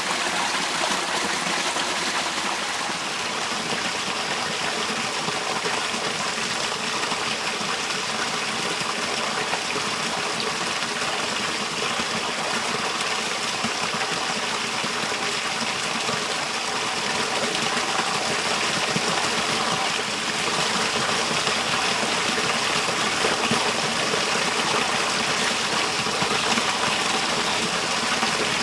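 Water running and gushing steadily, an even rushing sound without a break.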